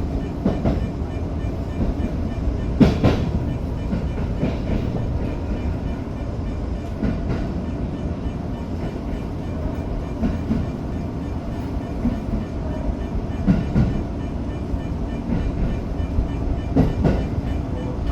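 Tokyo Metro 05-series electric train, heard from the cab: a steady rumble with a few sharp clanks, near three seconds in and again near the end.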